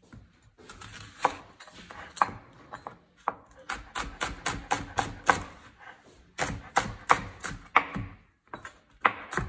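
Knife chopping food on a cutting board: a few single cuts, then quick runs of about three strokes a second with short pauses between them.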